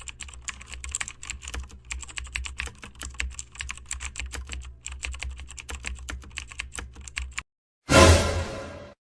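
Computer keyboard typing sound effect: rapid keystrokes in quick irregular runs for about seven seconds, then stopping abruptly. About a second later comes a sudden loud hit that fades out over about a second.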